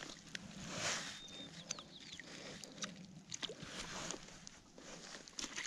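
Light water splashes and small knocks of a trout shifting in a landing net held in shallow water, with the net frame and handle being handled. The splashes are brief, about a second in and again about four seconds in.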